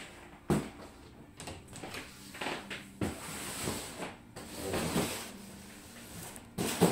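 Handling sounds in a small room: a few sharp knocks, the first about half a second in and the loudest near the end, with rustling between them.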